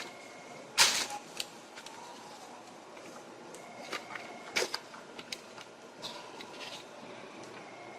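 Packaging being handled: scattered clicks and knocks over a steady background hum, with a loud knock about a second in and another about four and a half seconds in.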